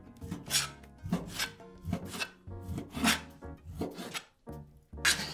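Chef's knife slicing raw chicken breast into small cubes on a plastic cutting board: repeated slicing strokes, about two a second, each a short scrape of the blade against the board. The loudest stroke comes near the end.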